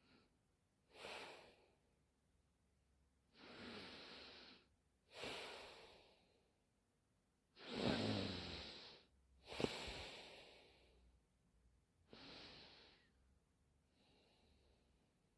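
A woman snoring in her sleep: a run of noisy breaths, one every second or two, the loudest two about eight and ten seconds in, the first of them with a low rattle.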